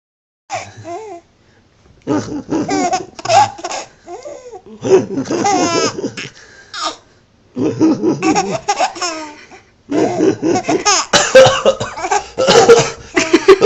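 Baby laughing hard in repeated bouts of belly laughs with short pauses between them, the laughter growing louder and more continuous towards the end.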